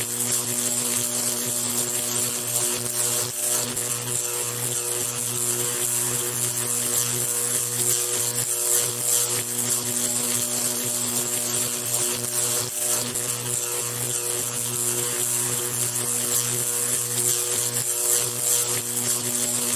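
Electric arc buzzing and crackling without a break: a steady electrical hum under a dense, hissing crackle of tiny sparks.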